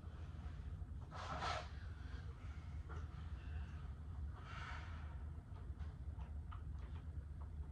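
Two short, sharp breaths or stifled snorts close to the microphone, about a second in and again near the middle, over a low steady hum. Faint ticks and rustles follow.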